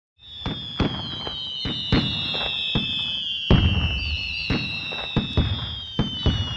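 Fireworks going off: about a dozen sharp bangs at irregular intervals, the loudest about two and three and a half seconds in. Over them run several high whistles that slowly fall in pitch.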